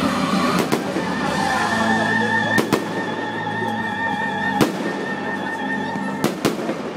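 Aerial fireworks shells bursting overhead in a string of sharp bangs, several coming in quick pairs, while music plays.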